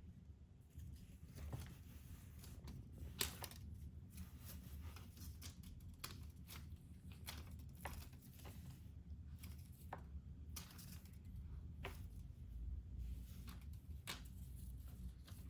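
A kitten playing and gnawing at something: faint, irregular small clicks and rustles over a low steady hum.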